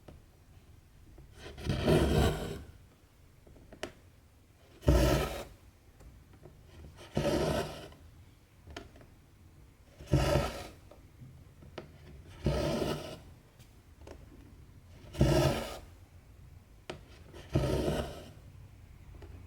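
Two strands of cotton embroidery thread being pulled through 14-count cross-stitch fabric, a short rasping draw about every two and a half seconds, seven times, with a few faint ticks of the needle between pulls.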